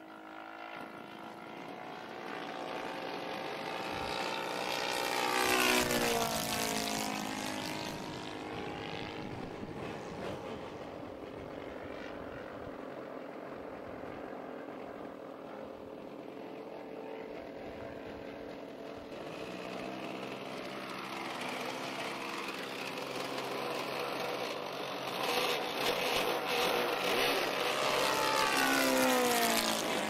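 Saito FG-57T boxer-twin four-stroke petrol engine of a 50cc-class RC Corsair, driving a 22x10 propeller at steady power in flight. Its pitch drops as the plane passes by about six seconds in and again, louder, near the end.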